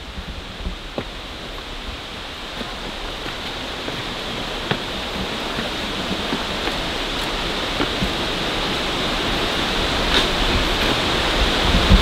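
Steady rush of falling water, growing gradually louder, with a few faint taps.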